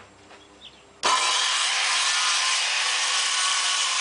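Corded circular saw switched on about a second in and cutting straight along a sheet of birch plywood. It is a loud, steady motor whine over the rasp of the blade in the wood.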